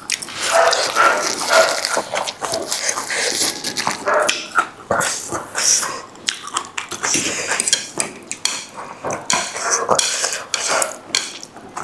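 Close-miked noodle eating: repeated slurps and chewing of spicy noodles, with light clinks of utensils against the bowl.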